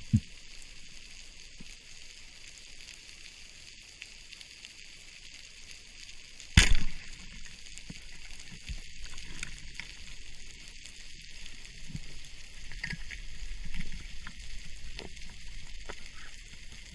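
Underwater ambience heard through a camera housing: a steady high crackle, with one sharp loud knock about six and a half seconds in and a few fainter clicks and thuds after it.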